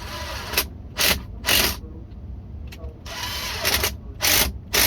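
Ratcheting tool tightening the screw clamps of a no-hub coupling band on a cast-iron drain pipe. It goes in short bursts of ratcheting with a longer run in the middle.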